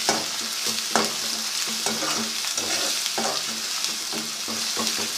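Ginger-garlic paste and browned onions sizzling in hot oil in a pan while being stirred, the utensil scraping and knocking against the pan about once a second.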